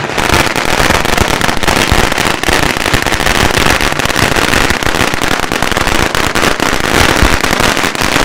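Firecrackers bursting on the pavement in a loud, rapid, unbroken crackle of bangs.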